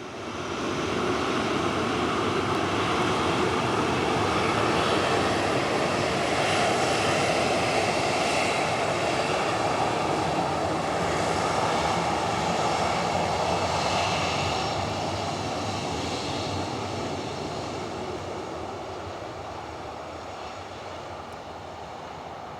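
Jet engines of a Boeing 737-800 running at taxi power as it rolls close past, a steady rushing whine that grows over the first second or two and fades gradually over the last several seconds.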